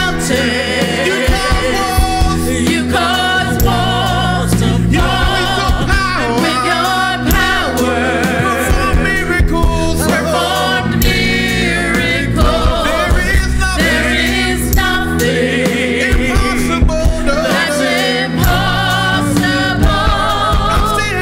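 Gospel music: singing with vibrato over a band accompaniment with a strong bass line and drum hits.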